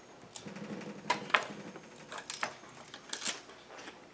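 Short metallic clicks and knocks of a wrench and chainsaw parts being handled as the side cover and bar nuts come off to free the bar and chain. The sharpest click comes just over a second in, with another cluster about three seconds in.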